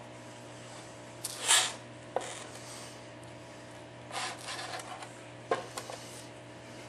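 Handling noise on a workbench: rubbing and rustling, with one loud short rush about a second and a half in and a few light clicks or taps, over a steady low electrical hum.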